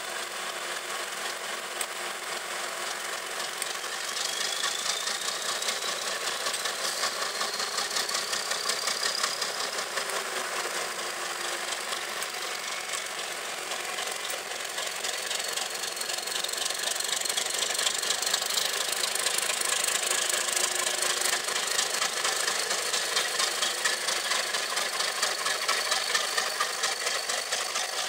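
English Electric V12 diesel engine of a BR Class 37 locomotive running, with a fine rapid beat. A high whistle rises about four seconds in and then holds steady, and the engine grows louder again about two-thirds of the way through as the locomotive works away.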